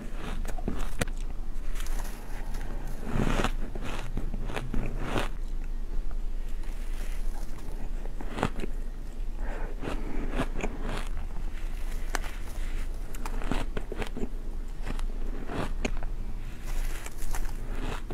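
Repeated bites into mouthfuls of fine, snow-like ice, crunching and crackling. Between bites a plastic spoon scrapes through the ice in the tub.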